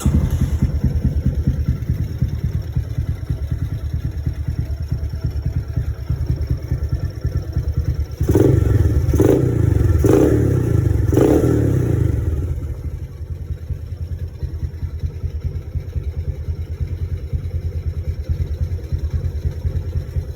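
Honda Astrea 90 motorcycle with a swapped-in Honda Karisma 125 cc single-cylinder four-stroke engine, running through a stock muffler that has been bored out. It catches at the start and idles with a fast, even exhaust beat. From about eight to twelve seconds in it is revved in four or five short throttle blips, then settles back to idle.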